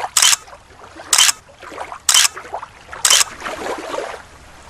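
Rhythmic swishing splashes, about one a second, like paddle strokes in water, with fainter washes of sound between them.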